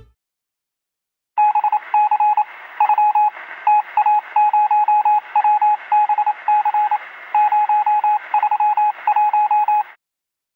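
Rapid electronic beeps at a single pitch, in irregular groups of short and longer pulses, over a hissy, narrow, telephone-like channel. They start about a second and a half in and stop shortly before the end.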